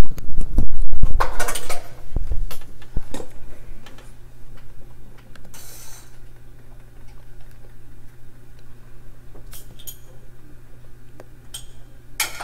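Clattering and sharp metallic clinks and knocks of objects being handled, loud for about the first two seconds, then a few soft clicks over a steady low hum.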